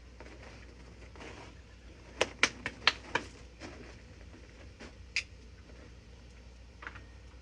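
Metal cooking utensil clicking against a griddle: a quick run of about five sharp clicks some two seconds in, then one more about five seconds in, over a low steady hum.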